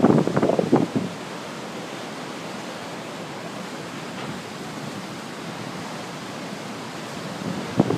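Steady, even roar of ocean surf breaking on a rocky shore. Wind buffets the microphone in bursts during the first second and again near the end.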